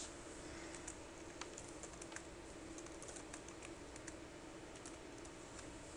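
Faint computer keyboard typing: scattered, irregular keystrokes entering IP addresses into a web form, over a faint steady hum.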